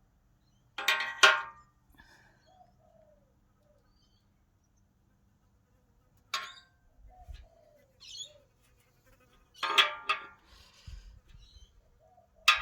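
Short, sharp metallic squeaks and clinks, four times, as a 19 mm spanner tightens the threaded port fittings onto an aluminium radiator.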